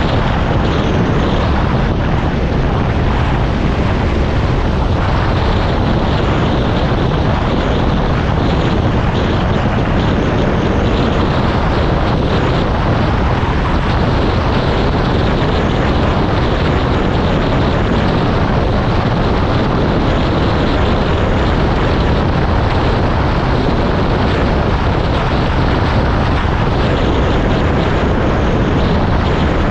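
A vehicle running steadily, a loud, constant rumble with no let-up or change in speed.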